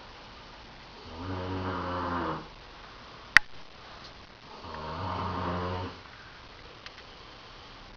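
A person snoring: two snores, each about a second and a half long, spaced about three and a half seconds apart. A sharp click falls between the snores, and a faint tick comes near the end.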